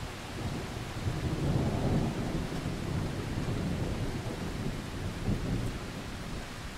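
Steady rain-like hiss with a low rolling rumble that swells about one to two seconds in and slowly dies away, with a smaller swell near the end.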